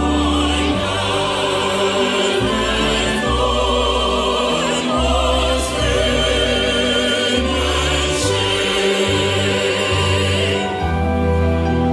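Mixed choir singing with vibrato, accompanied by a string ensemble of violins and cello holding sustained low notes. Near the end the voices stop and the strings carry on alone.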